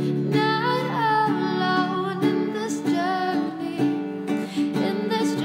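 Song with a singing voice over strummed acoustic guitar.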